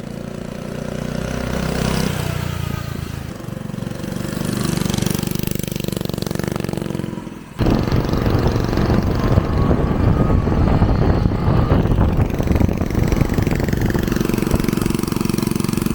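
An 80cc mini-bike engine running. It drops out sharply about seven and a half seconds in and comes back louder and rougher.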